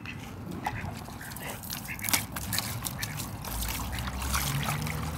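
Water from a garden hose pouring and splashing into a plastic tub, with ducks quacking now and then.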